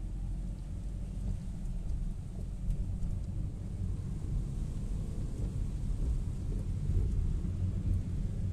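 Low, steady rumble of a car's engine and road noise heard from inside the cabin while driving in rain.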